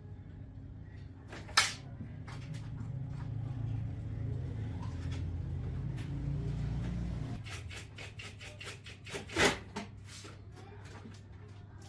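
Workshop handling sounds: sharp clicks and knocks of tools and metal parts, with a low hum that runs for about five seconds and cuts off suddenly.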